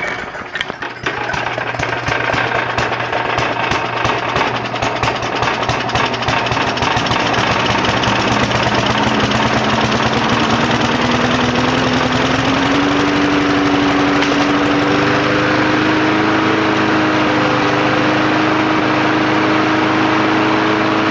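Lawn mower engine, modified to run on gasoline vapour drawn from a bottle, catches right at the start and runs unevenly at first, then picks up speed from about eight to thirteen seconds in and settles to a steady run.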